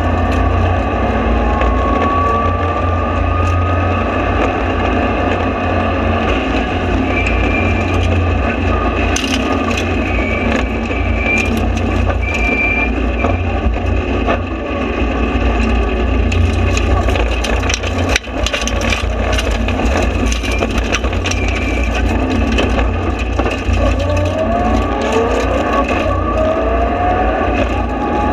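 Mitsubishi Lancer Evolution rally car's turbocharged four-cylinder engine at full throttle on a stage, heard from inside the stripped cabin with constant rattling over the drone. The sound briefly drops away about two-thirds through, and near the end a whine rises in pitch several times as the car accelerates.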